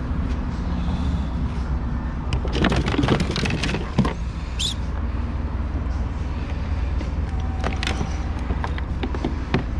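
Scattered clicks and knocks of a fishing lure, rod and freshly landed snook being handled on a plastic kayak deck, over a steady low rumble, with one brief high squeak about halfway.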